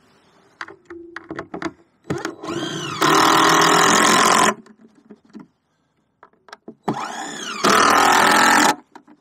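Cordless power driver running screws through a wooden owl nesting box into a tree trunk: two runs of about two seconds each, each starting softer and jumping much louder partway through.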